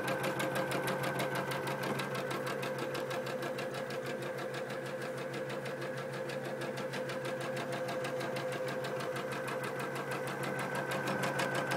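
Janome computerized embroidery machine stitching a design into a t-shirt: a rapid, even run of needle strokes over a steady motor whine.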